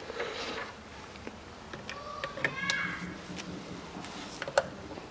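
Plastic push clips and the plastic air intake duct clicking and tapping into place as the duct is fitted, with a handful of sharp clicks in the second half and a brief faint squeak about two and a half seconds in.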